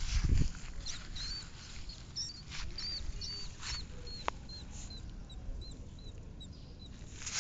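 A rat squeaking again and again in short, high-pitched chirps, two or three a second, growing fainter toward the end. A low rumble sits under the first second.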